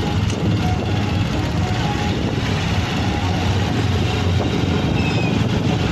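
Motorcycle engine running steadily while being ridden, heard from on board as a constant low drone.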